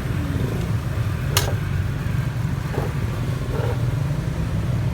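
Street traffic: a steady low rumble of passing vehicles, with a single sharp clack about a second and a half in.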